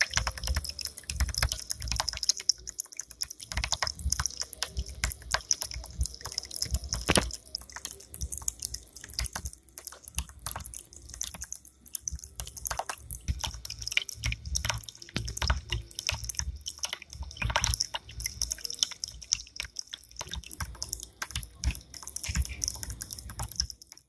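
Water from a bamboo spout trickling and splashing into a small tabletop fountain's basin and over a little bamboo water wheel: a steady run of irregular drips and splashes.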